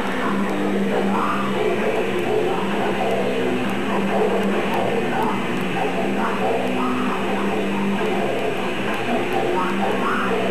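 Live underground metal band playing at full volume: distorted guitars over drums, a dense, continuous wall of sound with held low notes, recorded through an old VHS camcorder's microphone.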